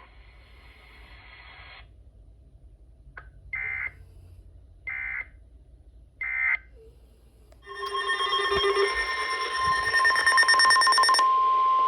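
Weather-radio emergency alert: three short bursts of screechy digital data tone, then about eight seconds in a loud, steady alarm tone begins. For its first few seconds other tones are layered over it, then it holds as one tone. It is the alert that comes before a new warning broadcast.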